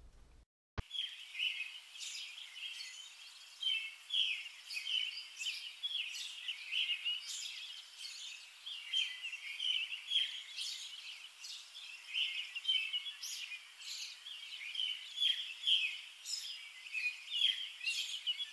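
Birds chirping: many short, high calls in quick succession, thin and without any low end, starting abruptly about a second in.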